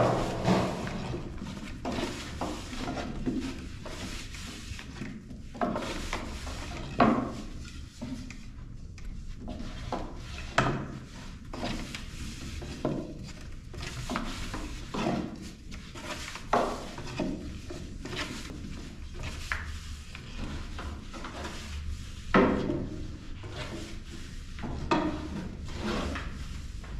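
Long thin wooden rolling pins rolling and rubbing over dough on round wooden boards as tiri flatbread dough is rolled out, with frequent irregular wooden clacks and knocks.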